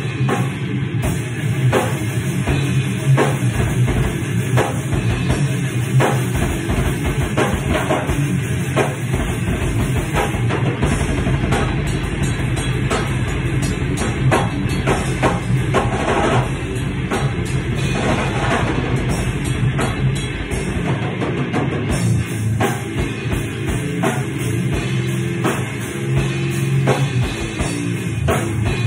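Heavy metal jam: electric guitar played with a drum kit, fast bass-drum strokes running steadily through the middle stretch.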